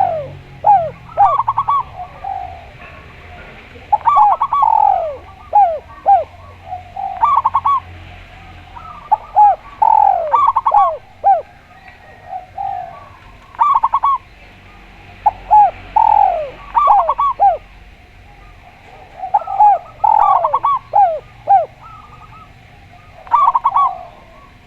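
Doves cooing: repeated phrases of quick, falling notes, a new phrase every two to three seconds.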